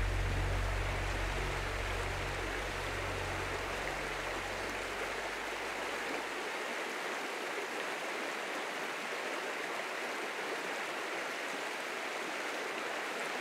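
Waterfall rushing in a steady, even wash of falling water. Low tones from the end of a piece of music fade out over the first several seconds.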